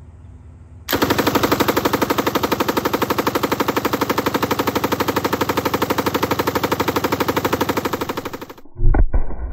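M249 SAW belt-fed machine gun firing 5.56 mm rounds in one long, unbroken full-auto burst of about seven and a half seconds, a rapid, even rattle of shots. It stops abruptly near the end, followed by a few deep thuds.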